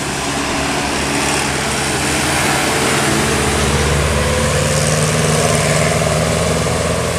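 Heavy vehicle traffic on a wet road: the diesel engine of a Hino RK8 R260 coach pulling uphill, with a pickup and a car behind it, running steadily and growing louder about halfway through, over an even hiss of tyres on wet asphalt.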